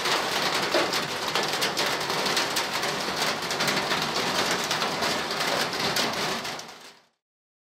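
Steady rain falling, with many distinct drop hits, fading out about a second before the end.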